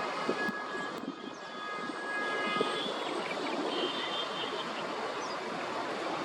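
White-faced whistling ducks calling: thin, level whistles come several at a time through the first half and briefly again about two-thirds of the way through, over a steady rushing noise.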